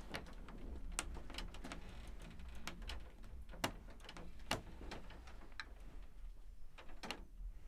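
Scattered sharp clicks and small knocks, about a dozen at uneven intervals, over a faint low hum.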